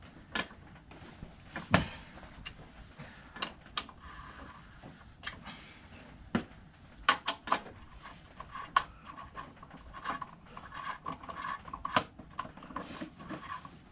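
Hand tools clicking and knocking on metal as the front brake caliper bolts of a motorcycle are loosened. Scattered single clicks, then a run of quick ticks from about ten seconds in.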